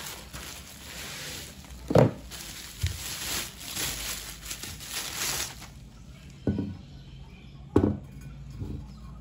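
Bubble wrap crinkling and rustling as it is pulled off an insulated water bottle, then quieter handling, with three dull knocks on a desk as the bottle and its box are set down, the loudest about two seconds in.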